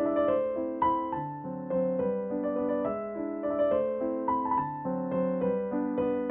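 Background piano music playing a melody of overlapping notes.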